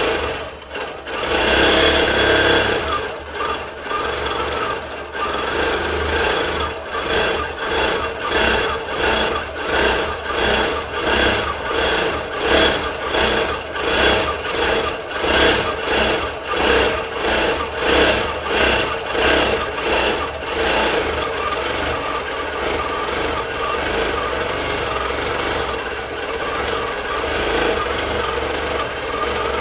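Bernina longarm quilting machine stitching in stitch-regulated mode, its needle running in a fast continuous chatter. The loudness swells and eases about once a second for the first two-thirds, then runs steadier.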